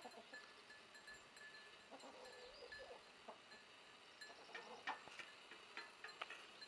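A goat bleating faintly once, a wavering call about two seconds in, over faint, high, evenly repeated chirps. A few sharp clicks come in the second half.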